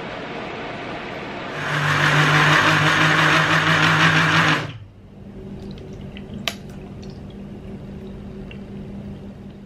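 Electric countertop blender motor starts about a second and a half in and runs loudly and steadily for about three seconds, liquidising pennywort leaves and water, then stops abruptly. A softer rush comes before it, and a sharp clink follows.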